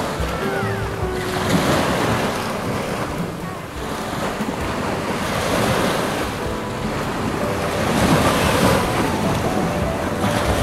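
Small sea waves breaking and washing up on a sandy beach, swelling and easing every few seconds, with wind buffeting the microphone.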